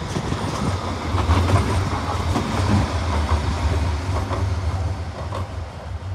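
CAF Urbos 100 light rail vehicle passing close by and moving off: a steady low rumble of the running gear with scattered clicks and clacks of the wheels on the track, easing a little near the end.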